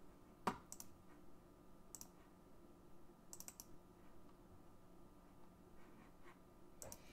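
Faint, scattered clicks of a computer mouse and keyboard, a few single clicks and a quick run of three or four about halfway, over a faint steady electrical hum.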